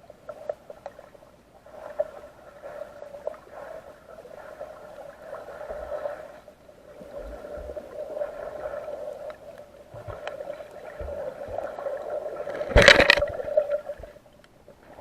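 Metal detector sounding a steady mid-pitched tone that swells and fades as it sweeps over a buried target, which the detectorist takes for lead. Scraping and knocking from digging come with it, loudest in a short burst about 13 seconds in.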